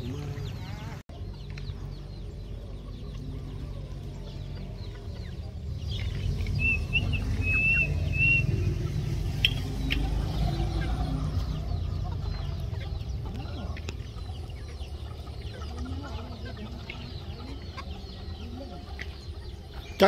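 Domestic chickens clucking in a flock, with a few high chirps about seven seconds in, over a constant low rumble that grows louder for several seconds in the middle.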